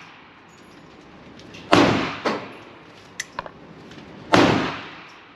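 Two heavy gunshots from a .50 AE handgun, about two and a half seconds apart, each trailing off in a short echo. A smaller bang follows the first shot, and a few faint sharp clicks come in between.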